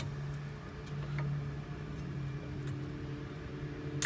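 A steady low hum, with light metallic clicks: one at the start, a faint one about a second in, and a sharper one near the end. The clicks come as a brake pad's tab is pressed into the caliper bracket's spring clips.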